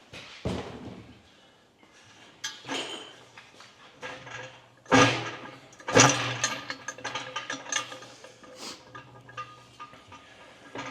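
Metal clanks and knocks from work on an engine, the loudest two about five and six seconds in, followed by a run of quick ratchet-like clicking.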